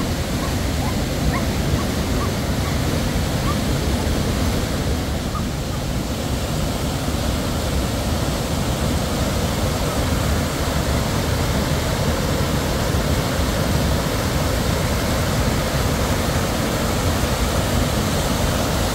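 Mountain stream rushing steadily over rocky cascades and small waterfalls.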